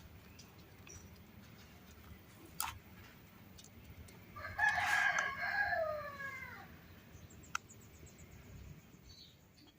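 A rooster crowing once, a call of about two seconds that drops in pitch at its end, with a sharp click shortly before it and another after it.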